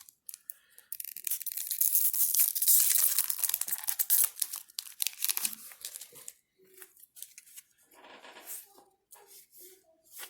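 Foil trading-card booster pack being torn open and crinkled, loudest for a few seconds about a second in, followed by softer rustling and small clicks as the cards are handled.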